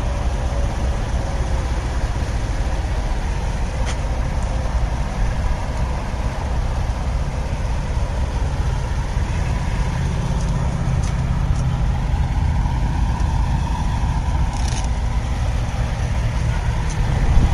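Semi truck's diesel engine idling steadily, a low constant running sound with no change in speed.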